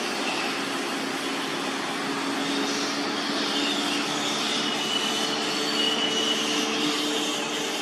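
Steady rushing noise with a constant low hum underneath. A few faint, short high-pitched calls come through around the middle.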